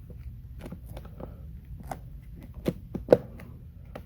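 Handling noise as vinyl wrap film is tucked and pulled around a Tolex case handle by hand: a scatter of light taps and clicks, with two louder knocks near the end, over a low steady hum.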